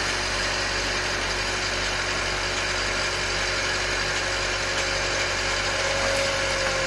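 Bobcat 778 skid-steer loader's diesel engine running steadily as the machine creeps backward to the edge of a trailer deck.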